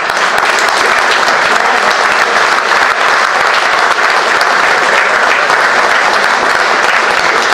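Audience applauding, a steady dense clapping that starts suddenly and keeps up without a break.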